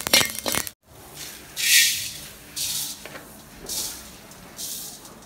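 A metal spoon scraping and clinking on spice seeds in a wok, then whole spice seeds poured and pushed by hand from a steel plate into the wok, coming as short hissing rushes about once a second.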